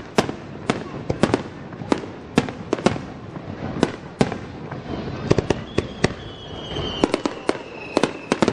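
Aerial fireworks going off as a string of sharp cracks, about two or three a second at uneven intervals. In the second half a faint high whistle runs under them, sinking slightly in pitch.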